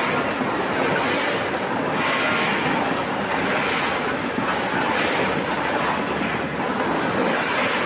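Food-processing conveyor line running steadily: a loud, even machine clatter with short faint high squeaks recurring every half second or so.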